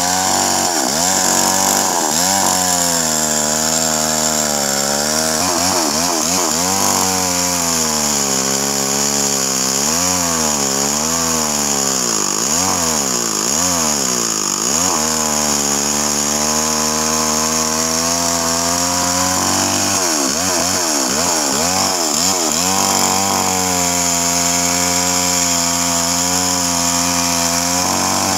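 Stihl MS 381 two-stroke chainsaw running under load while ripping lengthwise through a large red meranti log. Its engine pitch wavers up and down as the chain bites into the wood, dipping lowest about halfway through, then holds steadier.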